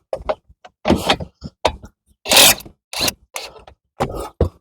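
Irregular metallic clicks, knocks and scrapes of a wrench working a 14 mm bolt on the front brake caliper of a 2017 Honda CR-V. About halfway through there is a longer scraping burst.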